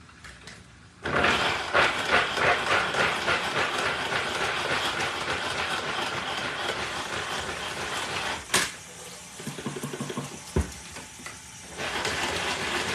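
Pull-cord manual food chopper chopping carrots: each pull of the cord spins the blades in the plastic bowl with a fast, rattling whir. It starts about a second in and runs hard, stops with a sharp click past the middle, and starts up again near the end.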